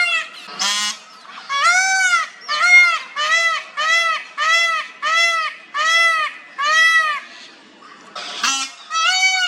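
Male peacock giving a fast series of short, loud, honking calls, each rising and falling in pitch, about one every 0.6 s, broken twice by a short harsh, noisy burst.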